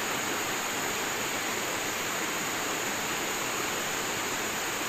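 Fast-flowing river rapids rushing steadily, an even, unbroken sound of churning whitewater.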